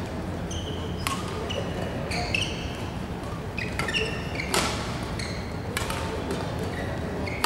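Badminton rally: court shoes squeak on the mat in short high chirps, and rackets strike the shuttlecock with sharp thwacks every second or so, the hardest near the end, over a steady low hum of the hall.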